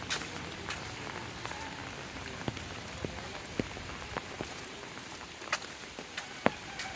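Steady rain falling, with scattered heavier drops landing close by as sharp, irregular taps, the loudest about six and a half seconds in.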